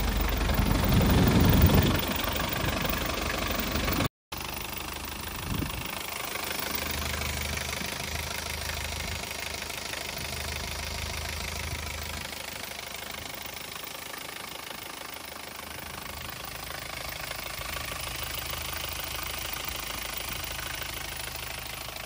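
Mercedes 240D's 2.4-litre four-cylinder OM616 diesel idling steadily after a restart.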